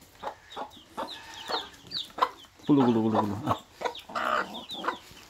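Mother hen clucking, with one longer, falling call about three seconds in, while her chicks peep over and over in short, high, falling chirps.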